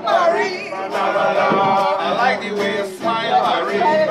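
Men singing to a small guitar-type string instrument, with other voices joining in.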